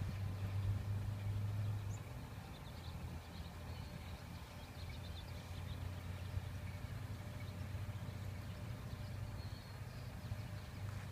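A steady low engine hum, louder for the first two seconds, with a few faint bird chirps over it.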